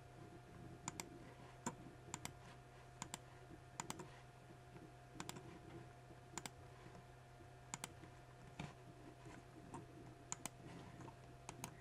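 Scattered computer mouse clicks, some in quick pairs, over a faint steady electrical hum.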